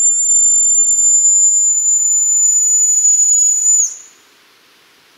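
A small metal hand whistle blown in one long, steady, very high-pitched blast that dips slightly in pitch and cuts off about four seconds in.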